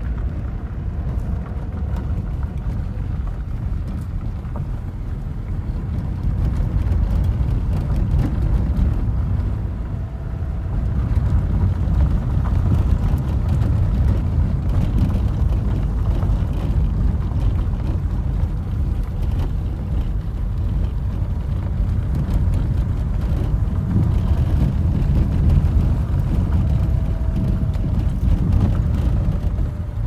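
Car driving slowly on a rough gravel road, heard from inside the cabin: a steady low rumble of tyres on stones and engine, growing a little louder a few seconds in.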